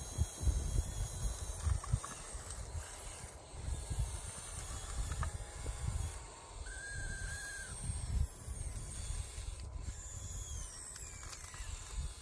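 Small electric drive motors of a converted Bruder RC excavator whining in short runs that start and stop, some gliding in pitch, over a low, uneven rumble.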